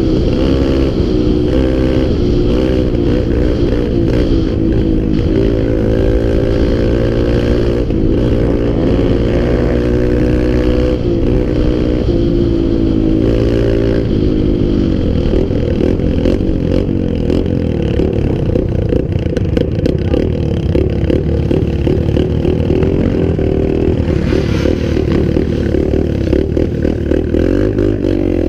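Small off-road vehicle engine running while riding, its pitch stepping up and down with the throttle. It runs fairly evenly for the first half and gets rougher and choppier from about halfway on.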